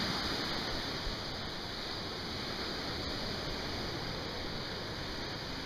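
Steady wash of Lake Michigan waves breaking on a stony beach.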